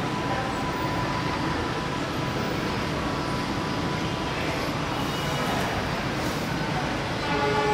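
Diesel-hauled passenger train running through a rail yard, heard from a distance as a steady rumble. Near the end a steady pitched tone of several notes comes in.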